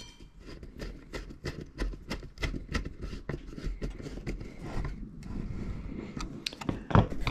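Screwdriver tightening a screw terminal on a 240 V to 12 V power converter: a quick, irregular run of small clicks and scrapes, with a louder knock near the end.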